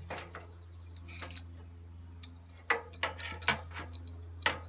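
Irregular metallic clicks and clinks of a wrench working on a propane hose fitting as it is tightened onto the gas line, over a steady low hum.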